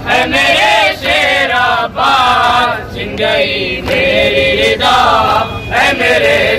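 Several men chanting an Urdu noha together without instruments, a mournful sung lament in long, wavering phrases with brief breaks for breath.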